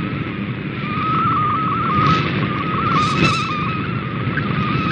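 MFSK64 digital picture transmission received on a shortwave radio: a single warbling data tone near 1.2 kHz over steady shortwave band noise and hiss, with two brief bursts of noise about two and three seconds in.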